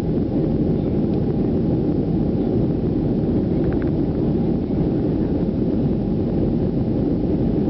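Steady roar of a Boeing 737's jet engines and rushing air, heard inside the passenger cabin during the climb after takeoff.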